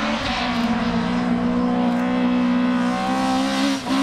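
Toyota Corolla GT AE86 rally car engine at full throttle, held at an almost steady pitch for nearly four seconds. The pitch dips briefly just before the end.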